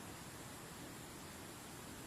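Faint, steady rush of a waterfall, even and unbroken.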